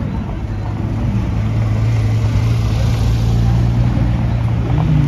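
Sports car engines at low revs as cars roll slowly past: a Porsche 911, then an Aston Martin Vantage. The low engine note holds steady and rises briefly near the end.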